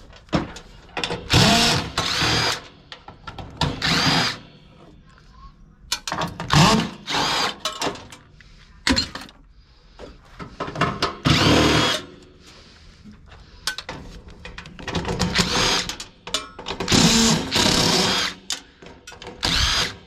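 Ridgid cordless impact driver running in about ten short bursts of up to a second each, its motor pitch rising and falling, as it backs screws out of the sheet-metal cabinet of an air handler.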